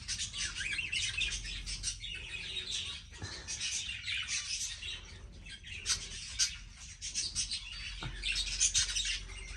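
A flock of budgerigars chattering and chirping continuously, with many quick high chirps overlapping, getting busier twice toward the end.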